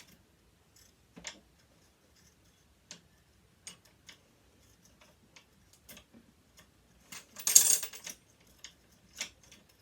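Scattered small metal clicks and taps from sewing-machine parts being worked loose with hand tools. Then, about seven and a half seconds in, a short clatter as a part comes loose and falls.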